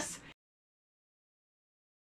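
A woman's last spoken word fades out, then dead digital silence with no sound at all.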